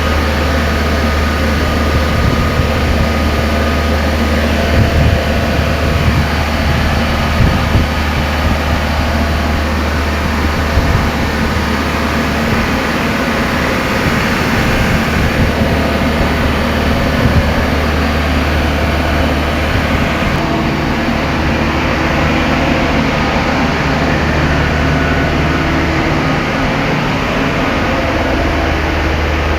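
Heavy engine on a refrigerated transport truck running steadily, a loud even low drone with steady hum tones.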